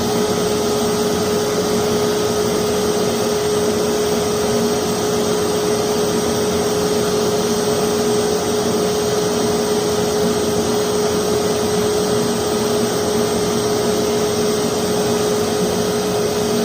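Forced-air propane forge burner and its electric air blower running steadily at 4 psi, a constant rushing noise with a steady hum-like tone through it.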